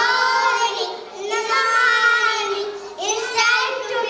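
Young children singing a song together, in three sung phrases with short breaks between them.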